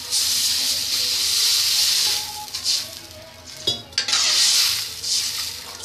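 Water poured into hot fried masala in a steel kadhai, hissing and sizzling loudly for about two seconds. A steel spoon then stirs the mix, with a single clink against the pan and a second burst of sizzling about four seconds in.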